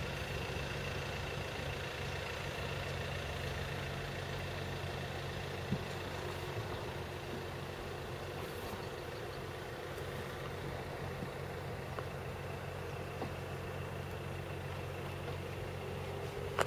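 Vehicle engine running steadily at low revs: an even, unchanging low hum.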